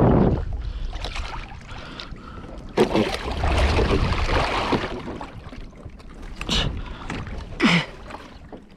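Water splashing and sloshing against a kayak hull as a large gaffed wahoo thrashes at the surface alongside, with a loud surge at the start and a longer splashy stretch a few seconds in.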